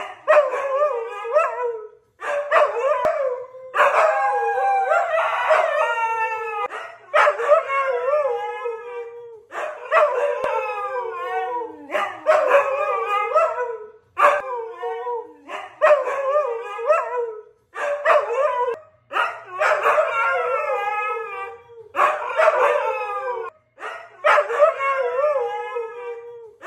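Siberian huskies howling in a long run of wavering, yodelling calls, each a second or two long with short breaks between.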